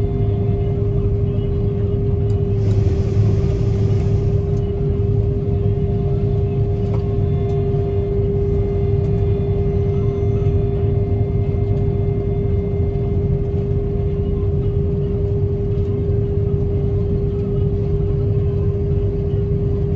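Combine harvester running steadily during harvest: a constant low rumble with a steady hum above it. A brief hiss comes in about three seconds in and fades after a second or two.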